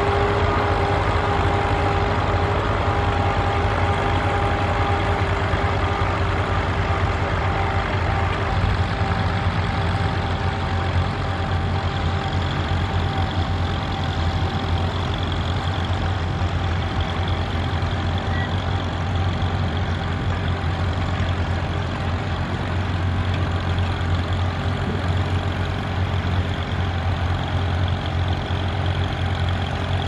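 Vintage tractor engines running steadily at working speed while ploughing, a constant low drone with a thin whine that fades away about halfway through.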